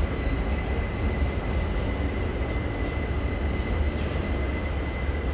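Steady rumble of a subway train out of sight on the elevated station structure, with a faint steady high whine and no change in level.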